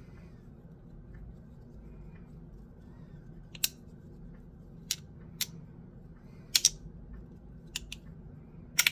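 Bean Slider haptic fidget clicking as its sprinkle-resin and metal halves are slid against each other: sharp clicks at uneven intervals, starting about three and a half seconds in, some in quick pairs.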